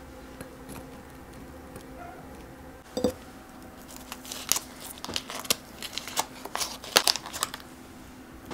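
Paper baking cup being peeled off a baked muffin: a run of crinkling, tearing paper sounds in the second half, after a single knock about three seconds in.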